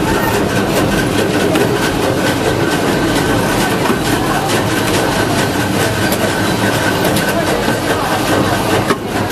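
Motor-stator production machinery running: a dense, rapid clatter of clicks and knocks over a steady mechanical din, with a thin high whine held throughout. The noise dips briefly near the end.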